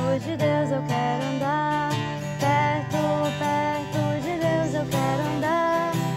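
Acoustic guitar strumming chords while a young woman sings a melody over it.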